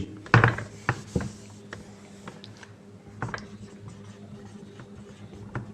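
A few light taps and clicks, clustered in the first second and again briefly a little past the middle, over a steady low hum.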